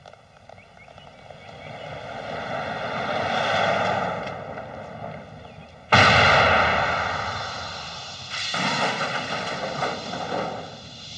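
A car speeding away, its engine noise swelling and fading. About six seconds in comes a sudden loud blast as the car launches with fire shooting from its exhaust, then a second surge of roaring noise that dies away.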